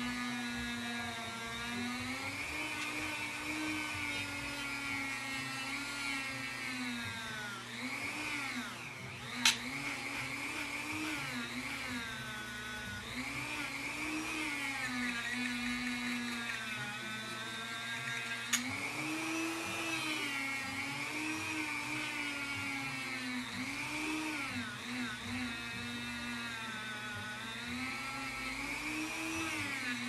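Dremel rotary tool spinning a polishing wheel against a metal Zippo lighter case: a steady high whine whose pitch repeatedly sags and recovers as the wheel is pressed onto the metal. Two sharp clicks stand out, about a third and two-thirds of the way through.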